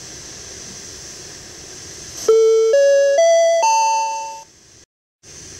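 Ship's public-address attention chime: four notes rising one after another, about half a second apart, the last ringing on and fading, over a steady hiss from the PA recording. It is the signal that an announcement is about to follow.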